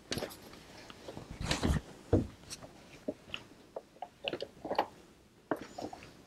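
Upholstery-weight canvas fabric being shifted and smoothed by hand at a sewing machine, with the machine stopped: scattered soft rustles and a few light clicks.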